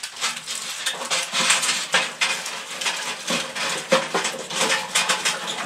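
Irregular knocking and clattering of wood against metal as a fire is laid in a small wood stove.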